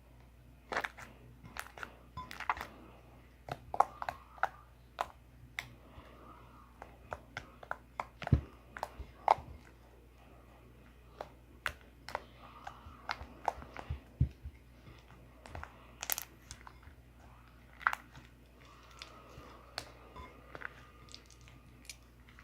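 Fluff slime being kneaded and stretched by hand, giving irregular sticky clicks and small pops.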